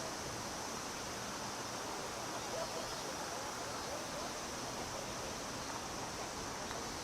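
A chorus of cicadas, a steady high-pitched drone that does not change over the seconds, over a faint general murmur.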